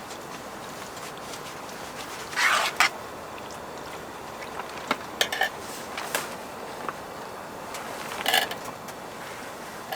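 Kitchenware clattering and clinking a few times over a steady background hiss: a short clatter about two and a half seconds in, a few light clinks around five to six seconds, and another clatter just past eight seconds.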